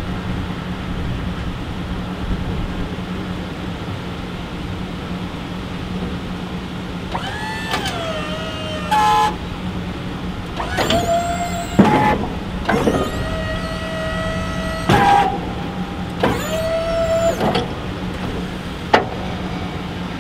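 Snowplow's electric-hydraulic pump motor whining in four or five runs of one to two seconds as the blade is raised, lowered and angled. Each run starts with a rising spin-up and then holds a steady pitch, over a steady low hum, with a sharp click near the end.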